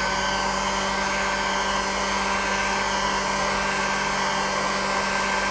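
Electric heat gun running steadily: an even blowing rush with a faint steady whine. It is warming the Rotax crankcase housing around the rotary valve drive shaft's outer bearing so that the shaft can be driven out.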